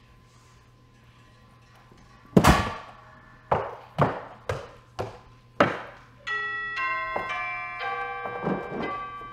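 Knocking on a door, six knocks: one loud, then five lighter ones about half a second apart. A doorbell chime then plays a run of clear bell-like notes.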